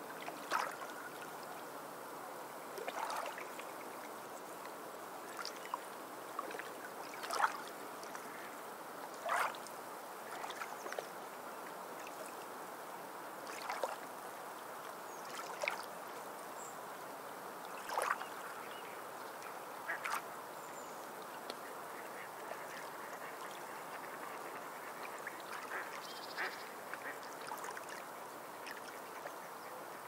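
Small waves lapping against shore rocks: a steady wash of water, broken every couple of seconds at irregular times by short, sharp slaps and sloshes as water hits the rocks.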